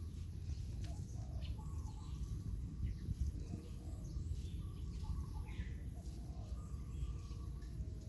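Outdoor ambience: scattered short bird chirps over a steady low rumble, with a faint steady high-pitched whine running underneath.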